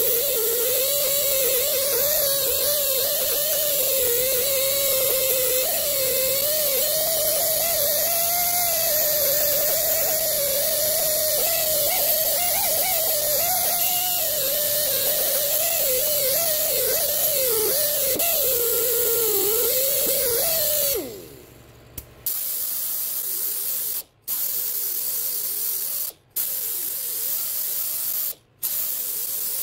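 Air-powered right-angle grinder spinning a wire cup brush against a steel brake hub face, stripping rust scale: a steady hiss with a wavering whine, which winds down about 21 seconds in. After that, a grinder with a surface-conditioning cookie disc runs in stretches of about two seconds, broken by brief stops.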